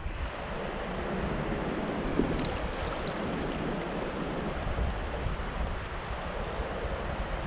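Steady wind buffeting the microphone, with a low fluctuating rumble, over the rush of moving river water around an inflatable pontoon boat.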